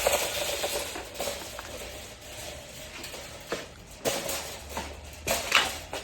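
Items being handled and set down, a scattered series of knocks and light clatters.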